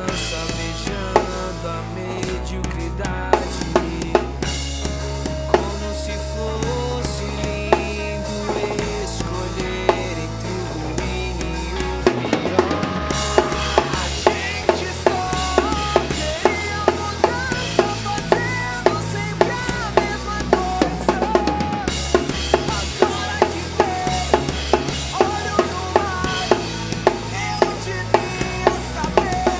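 A band playing an original song, led by a drum kit with bass drum, snare and rimshots over a bass line and other pitched instruments, recorded through a single microphone. The drumming gets busier and louder about twelve seconds in.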